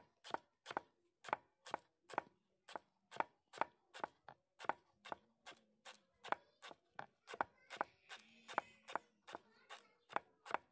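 Knife chopping fresh coriander leaves finely on a wooden board, with steady, light strokes of about three a second.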